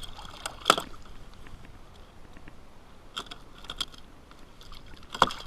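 A handful of sharp metallic clicks and clacks from a Boga Grip's spring-loaded jaws being worked to clamp a bluefish's jaw. The tool is old and full of sand and does not work properly.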